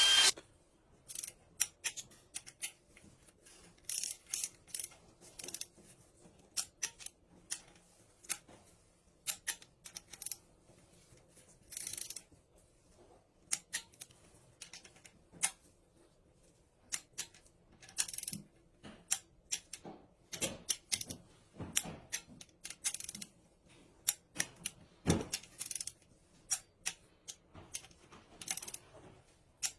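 Irregular light metallic clicks and clinks of hand tools and parts being handled during work on a Mercedes CDI diesel engine, scattered through with short pauses. A power tool cuts off just at the start.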